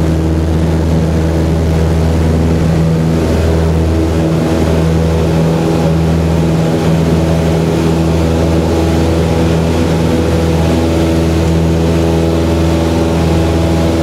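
Single-engine light aircraft's piston engine and propeller at full takeoff power, heard from inside the cockpit: a loud, steady drone through the takeoff roll and climb-out.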